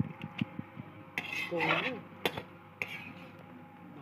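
Steel utensils clinking and scraping against a steel pot and steel bowls as halwa is served out, with a run of short sharp clinks and one louder clink a little after two seconds.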